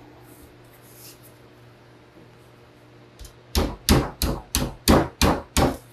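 Hammer pounding a sheet-metal edge over to fold it flat: about seven sharp blows, roughly three a second, starting about three and a half seconds in after a quiet stretch.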